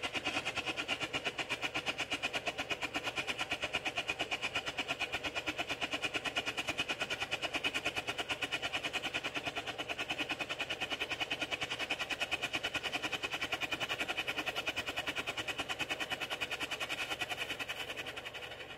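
Handheld white strobe flare burning, its strobe charge sputtering in a rapid, even pulse of several bursts a second, one with each flash. It grows fainter near the end.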